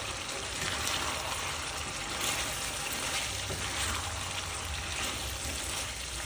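Chicken simmering in a thick chili sauce in a pan, stirred with a spatula: a steady hiss of cooking that swells now and then as the pieces are turned.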